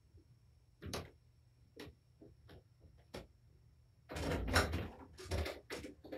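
Off-camera door and handling noises: a few light clicks, then about two seconds of loud rustling and knocking from about four seconds in.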